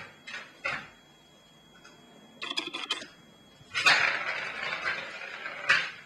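A kitten batting at a circular plastic ball-track cat toy: a few light knocks and a quick run of clicks from paws on the plastic, then about two seconds of the ball rattling round the track, ending in a sharp knock.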